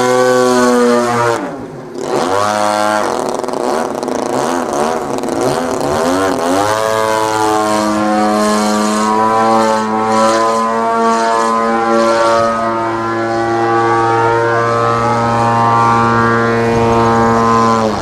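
35cc MLD two-stroke petrol engine and 20x8 propeller of a radio-controlled Slick 540 aerobatic plane in flight. The engine note dips briefly about a second and a half in and wavers in pitch through the manoeuvres. It runs steady from about seven seconds on.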